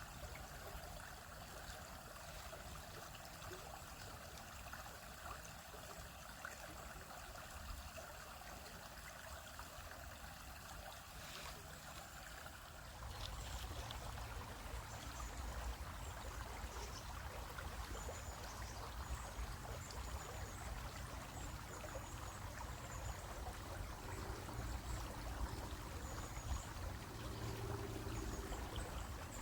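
Stream flowing over rocks: a steady rush and trickle of water that grows a little louder and fuller about thirteen seconds in.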